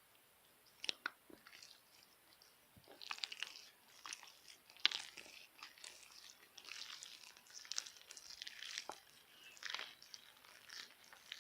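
Hard slime being squeezed and pressed by hand, giving irregular crisp crackles and small snaps in clusters, the sharpest snap about five seconds in.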